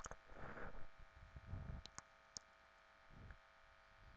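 Near silence: faint steady room hum with a few soft clicks, near the start and around two seconds in.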